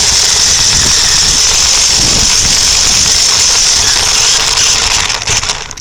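Battery-powered RC toy truck driving, its electric motor and gears running with a steady high whine and the chassis rattling, heard from a camera taped to the truck. The motor dies away and stops near the end.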